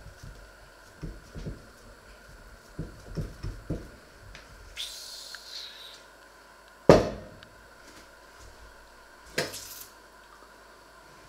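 Dough being kneaded and pressed by hand in a stainless steel mixing bowl, a series of soft thumps. A loud sharp knock with a short ring comes about seven seconds in, and a smaller knock about two and a half seconds later.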